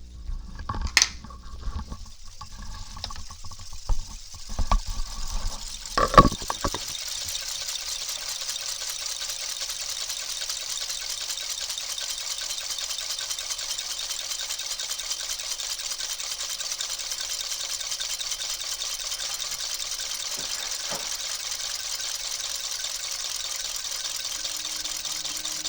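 Fifty antique American-made pocket watches ticking all at once, their overlapping ticks merging into a dense, steady, shimmering clatter. A few knocks and thumps come in the first several seconds, the loudest about six seconds in, before the ticking settles in evenly.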